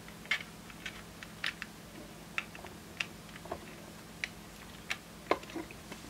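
Light, irregular clicks and taps of small plastic parts being handled: a wire connector pushed onto a display board and a plastic instrument front panel shifted about, about a dozen sharp ticks with short gaps between them.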